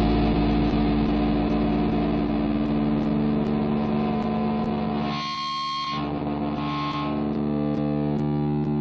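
Distorted electric guitar and bass letting a final chord ring out at the close of a punk/hardcore song: a steady sustained drone that slowly fades. A little past the middle, the sound briefly thins to a tinny, high-only stretch for about a second.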